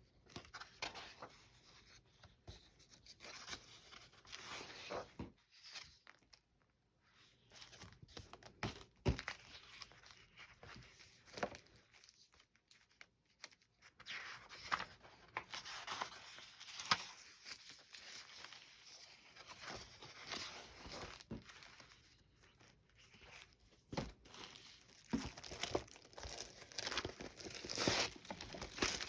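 Paper rustling and crinkling as vintage paper doll books and sheets are handled and their pages turned, with irregular soft clicks and crinkles that grow busier in the middle and near the end.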